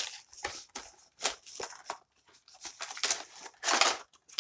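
Clear plastic toy packaging crinkling as it is pulled and torn open, in irregular rustling bursts, the loudest near the end.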